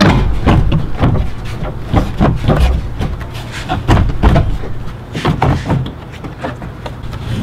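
Hard plastic trunk side trim panel being pulled and worked loose by hand, giving an irregular string of knocks, clicks and rattles, loudest at the start and about four seconds in.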